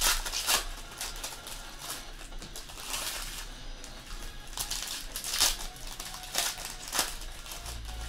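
Foil trading-card pack wrappers crinkling and tearing as packs are ripped open by hand, with irregular sharp crackles every second or so.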